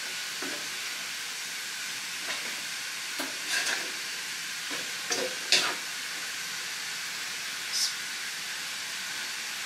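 Minced beef, carrot, potato and onion filling sizzling steadily in a wok, with the occasional scrape of a wooden spatula stirring it, a few strokes spread irregularly.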